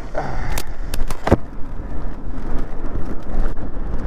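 Wind buffeting the microphone as an electric dirt bike pulls away, a dense low rumble with a few sharp clicks about a second in.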